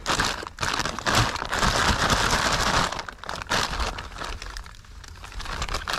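Crumpled plastic bag crinkling and rustling as it is pulled open and shaken out by hand, loudest for the first half, then lighter scattered crackles.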